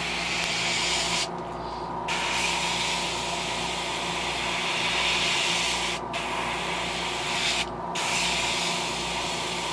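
Gravity-feed airbrush spraying thin coats of green paint onto a clear crankbait: a steady hiss of air and paint that stops three times, about a second in, briefly around six seconds and near eight seconds, with a steady low hum underneath.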